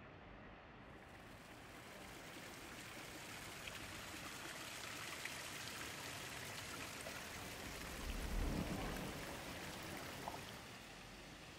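Water of the Fountain of Neptune splashing and trickling into its basin, a steady hiss that swells as it gets closer and then fades near the end. A brief low rumble comes about eight seconds in.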